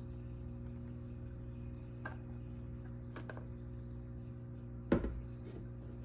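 A few faint clicks and taps from handling a jewelry box and a metal bangle bracelet, then one sharper knock about five seconds in, like the box being set down on the table.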